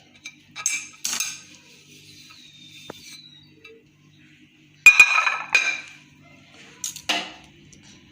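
Dishes and utensils clinking and clattering during kitchen work, in three short bursts; the loudest, a sharp ringing clink, comes about five seconds in.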